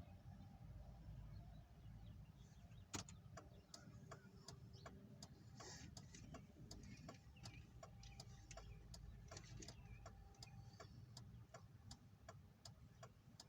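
Faint, steady ticking, about two to three ticks a second, starting with one louder click about three seconds in, over a low rumble.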